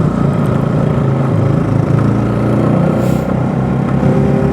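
Bajaj Pulsar NS200's single-cylinder engine running under way, holding a fairly steady pitch.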